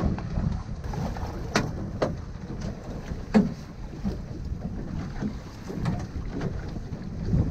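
Wind buffeting the microphone and choppy water washing and slapping against a small boat's hull, with several sharp knocks, the loudest a little over three seconds in.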